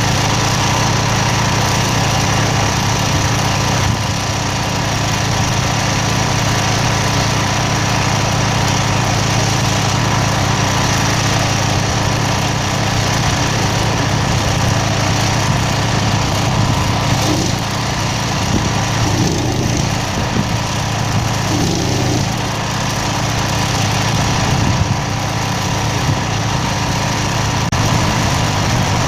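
An engine running steadily at an even speed, without changes in pitch.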